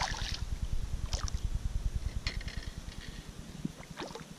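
A sharp splash on the pond surface beside the kayak, then three smaller splashes spaced about a second apart, over a steady low rumble.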